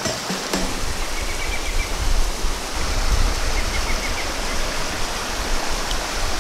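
Shallow mountain stream water rushing close to the microphone, with splashing as a net is lifted dripping from the water.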